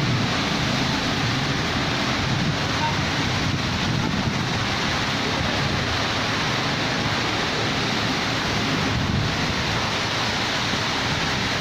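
Rain falling in strong wind, a steady, unbroken hiss with no break or change.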